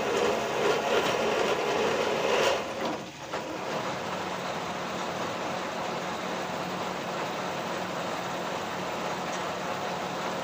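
Metal lathe cutting a spinning steel shaft: the tool in the cut gives a louder scraping noise for about the first two and a half seconds, then the cut ends and the lathe runs on with a steady mechanical hum.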